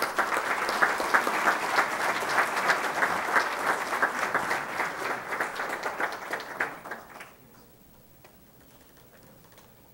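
Audience applauding; the clapping dies away about seven seconds in.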